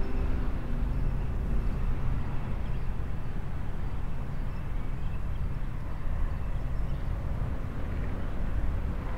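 Steady outdoor ambient noise, mostly a low rumble with a light hiss above it and no distinct events.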